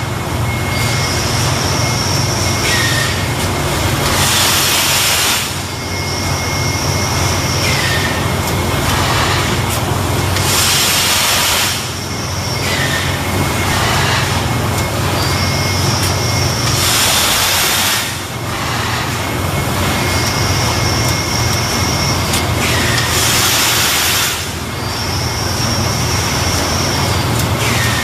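An industrial plastics-processing machine running on a repeating cycle about every six seconds under a steady low hum. Each cycle brings a high whine and then a burst of rushing hiss, four cycles in all.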